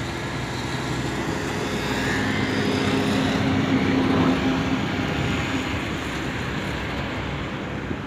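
A passing motor vehicle over steady outdoor traffic noise. Its engine hum swells to a peak about four seconds in, then fades.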